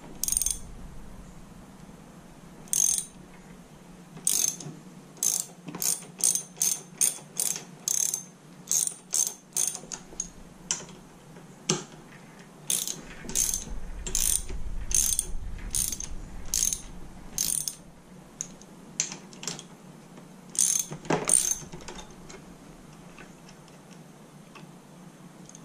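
Hand ratchet wrench clicking in runs of quick strokes, tightening bolts while the handlebars are mounted on an ATV. The clicking stops a few seconds before the end.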